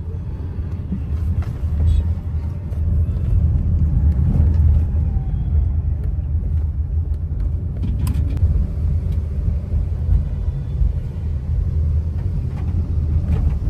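Steady low rumble of a car on the move, heard from inside the cabin, with a brief click about eight seconds in.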